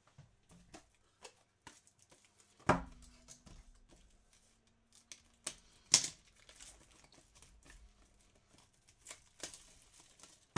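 Scattered clicks and light knocks of things being handled at a desk, with a heavier thump about three seconds in and a sharp knock about six seconds in.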